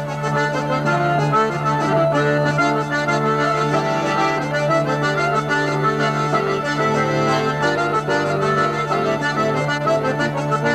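Hurdy-gurdy, button accordion and bagpipes playing a lively folk dance tune together over a steady low drone, with the accordion prominent.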